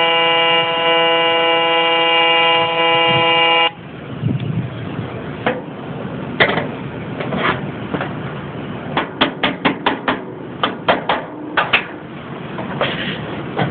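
AC TIG welding arc on aluminium buzzing steadily, a loud tone with many overtones, cutting off abruptly about three and a half seconds in. Scattered sharp clicks and a quick run of taps follow.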